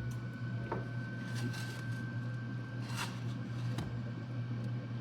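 Steady low hum with a faint high tone held over it, and a few light clicks and taps scattered through.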